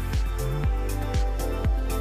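Background music with a steady kick-drum beat, about two beats a second, over held bass notes.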